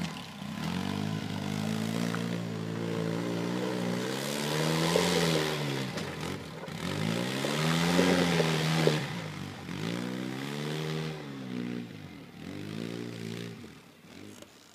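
Side-by-side UTV engine revving up and down in repeated swells as it climbs a steep rocky ledge. The engine fades over the last couple of seconds as the machine pulls away over the top.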